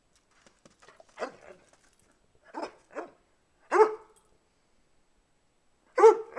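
A dog barking in short single barks, about six in all, spaced irregularly. The last two come close together near the end and are the loudest.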